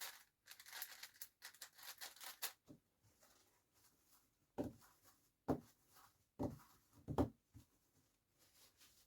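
Hands handling objects at a table: a quick run of crackly, rustling clicks for about two and a half seconds, then a few separate soft knocks.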